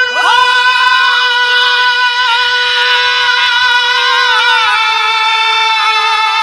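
Female birha singer holding one long sung note over a sustained harmonium, whose low note steps down twice in the second half.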